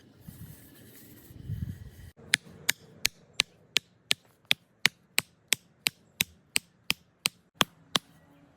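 A wooden hammer striking wood in a fast, even run of about seventeen sharp knocks, roughly three a second. This follows about two seconds of low rumbling.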